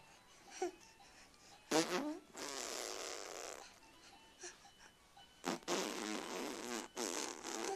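A small child blowing raspberries, spluttering through the lips three times: a long one about two seconds in, then two shorter ones back to back near the end.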